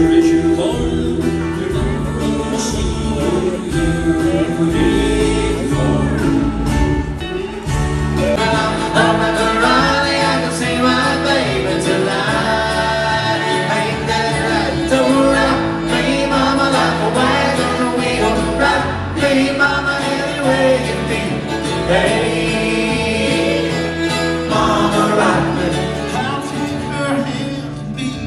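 Live country music with singing. About eight seconds in it changes to a different song played by a string band on fiddle, acoustic guitars, banjo and upright bass.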